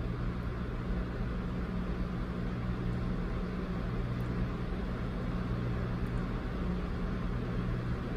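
Steady low hum with an even hiss, unchanging throughout: background noise of the room and recording, with no distinct event.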